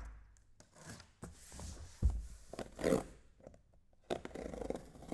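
Cardboard trading-card boxes being handled and opened: a knock about two seconds in, with clicks and rustling, scraping cardboard and wrapping.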